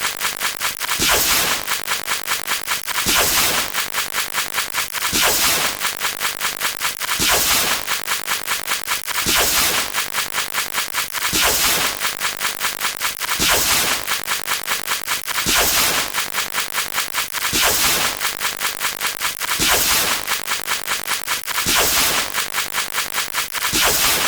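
Sound-effect loop of a metal tap repeated very fast, more than ten taps a second, with a waves-crashing effect swelling up about every two seconds.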